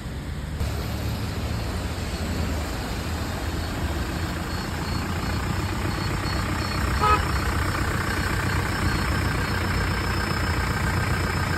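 Motor vehicle engines running steadily with a low rumble, with a short pitched tone about seven seconds in.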